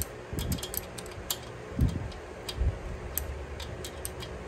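Scattered light metal clicks from a quarter-inch wrench turning an adjustable pushrod on a Harley-Davidson Twin Cam 96 engine, with a couple of dull knocks near the middle. The pushrod is being lengthened through its set number of full turns past zero lash to preload the lifter.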